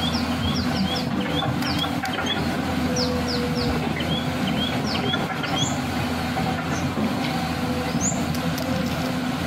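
Small birds chirping in quick, repeated short calls over a steady low mechanical rumble, like a motor running.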